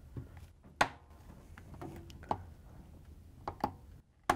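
Hands working a Frigidaire washer's inner bellow spring into the groove of the rubber door bellow: about five scattered sharp clicks and taps from the metal spring and clamps, the loudest near the end.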